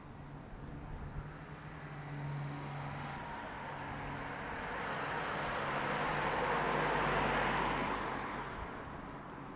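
Rushing noise of a passing vehicle that swells over several seconds, is loudest about seven seconds in, then fades, with a low hum coming and going underneath.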